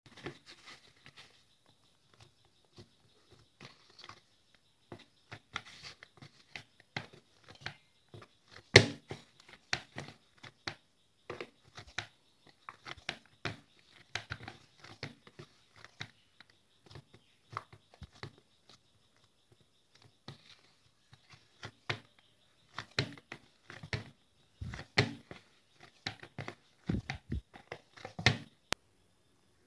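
Hand kneading whole-wheat flour dough in a plastic bowl: irregular soft squishes, slaps and taps of dough and fingers against the bowl, with one sharper knock about nine seconds in.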